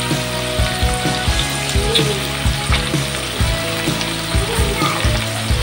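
Green beans sizzling as they fry in a wok, over background music with a steady beat.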